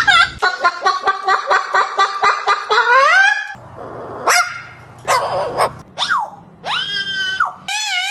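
Parrot calling: a fast run of short pitched yelps, about four or five a second, ending in a rising call, then a few sharp rising squawks and a held note. A wavering tone starts near the end.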